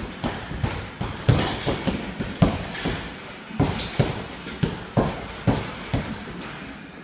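Strikes landing on a hanging heavy bag: a quick, uneven string of a dozen or so dull thuds in short combinations, each with a short ring of the room after it, dying away about a second before the end.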